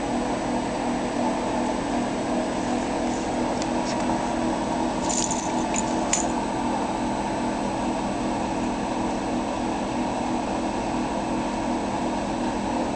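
Steady mechanical hum like air conditioning or ventilation, with a few faint light clinks about five to six seconds in.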